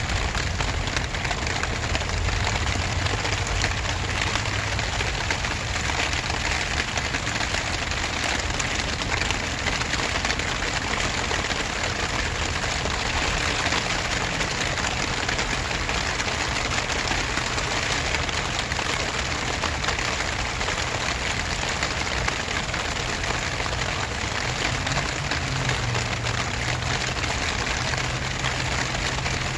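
Steady rain falling, an even hiss of drops on grass and surfaces, with a low hum underneath that swells near the start and again near the end.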